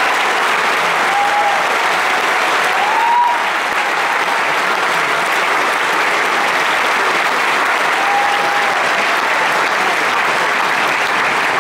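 Large concert audience applauding and cheering steadily after a song ends, with a few brief cheers rising above the clapping.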